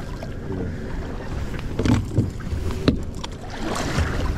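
Boat engine running with a steady low rumble while water splashes and sloshes against the hull. A few sharp knocks about two to three seconds in.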